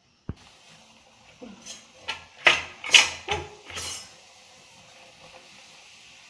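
Perforated steel slotted spoon clinking and scraping against a non-stick kadhai while pressing a kachori down in hot oil to puff it, over a steady sizzle of frying oil. One sharp click comes just after the start, then a run of louder clinks from about one and a half to four seconds in.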